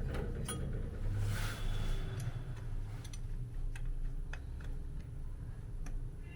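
A few separate light clicks spread over several seconds, with a brief rustle near the start, over a steady low hum.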